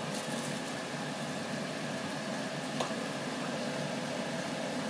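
Spice paste frying in oil in a wok: a steady sizzle with a faint steady hum under it, and one light click a little past the middle.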